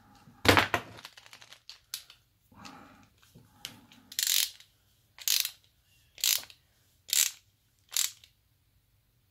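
Ratcheting screwdriver with a socket bit tightening a nut onto a bolt. Its ratchet clicks in five short runs about a second apart on the back-swings, after a clatter of the small metal parts being handled about half a second in.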